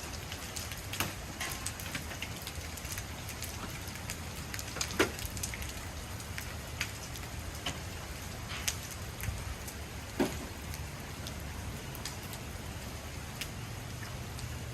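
Steady rain with scattered sharp knocks of hailstones striking the ground, the loudest about five and ten seconds in.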